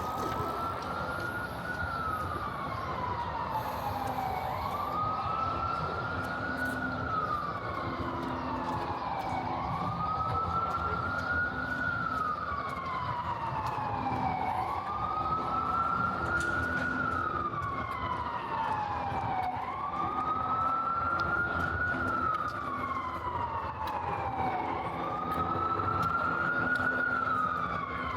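Emergency vehicle siren on a slow wail, rising and then falling in pitch about every five seconds, over steady city street noise.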